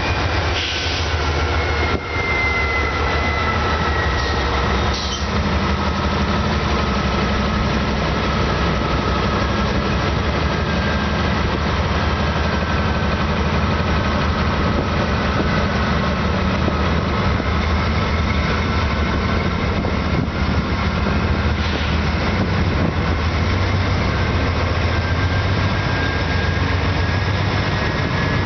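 Union Pacific diesel-electric freight locomotives working under heavy throttle as the train moves off from a stop, a steady low engine drone with a rumble over it. A high whine drifts slowly down and then back up.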